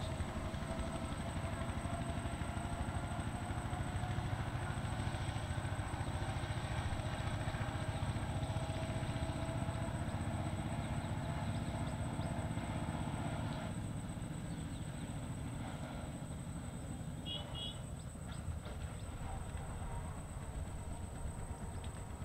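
A distant engine running steadily, its faint hum slowly rising in pitch, then dropping away and getting a little quieter about two-thirds of the way through.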